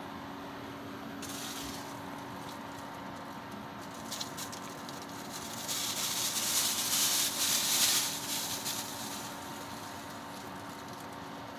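Gembird FANPS fan running with a steady hum and a faint whine. About a second in, and again louder from about six to nine seconds in, there is a hissing, rustling rush of air noise with light rattling.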